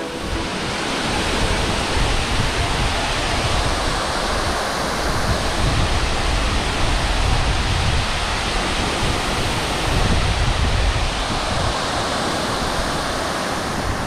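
Large waterfall: a steady, loud rush of falling water close by.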